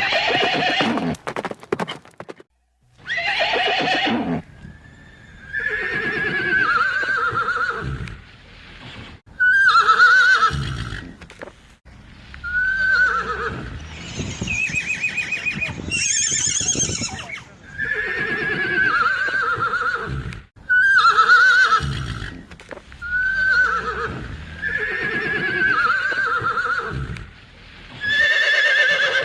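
Horses whinnying over and over: about a dozen separate calls, each a second or two long, with short pauses between them.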